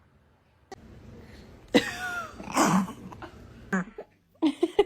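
Baby hiccuping: a few sudden, sharp hiccups, the first with a brief squeaky vocal note. Near the end a quick run of laughter starts.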